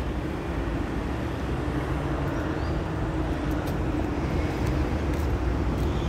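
Steady rumble of road traffic, heard at walking pace from the footpath.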